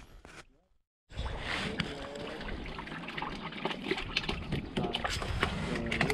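Water sloshing and trickling with scattered small clicks and knocks, starting after about a second of silence near the start.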